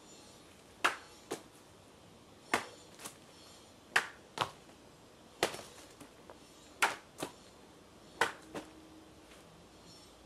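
Sword strikes in a quick series: six pairs of sharp cracks, the two in each pair about half a second apart, a new pair roughly every second and a half.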